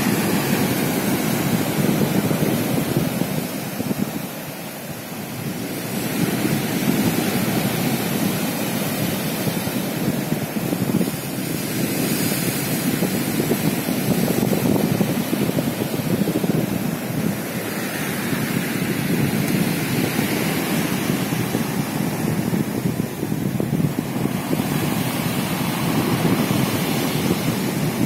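Storm surf breaking and washing over a pebble beach, swelling and easing in surges every few seconds, with wind buffeting the microphone.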